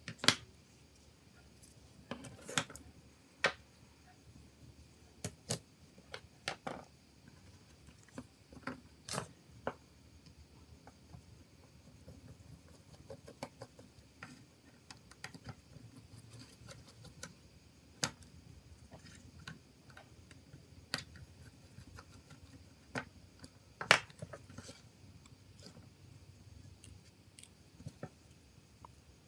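Irregular small clicks and taps of hand tools and plastic mobile-phone parts being handled on a work surface, with two sharper knocks, one just after the start and one about 24 seconds in.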